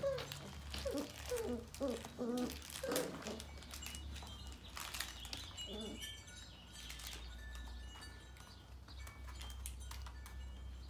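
Sheepadoodle puppies at play: a run of short yips in the first few seconds and one more about six seconds in, with light clicks and scuffling of paws on the floor throughout.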